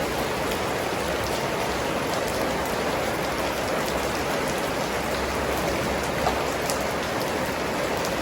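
Steady rain falling and pattering on surfaces, with scattered drip ticks.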